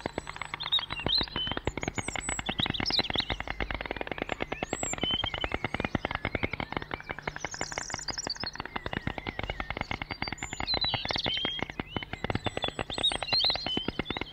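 White stork bill-clattering: a fast, continuous rattle of wooden-sounding clicks, with small songbirds chirping over it.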